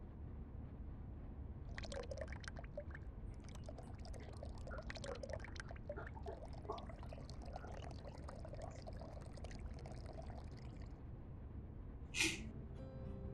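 Water poured through a paper filter in a pour-over coffee dripper, faintly trickling and crackling, the usual pre-rinse of the filter before brewing. About twelve seconds in comes one short, sharp, louder sound.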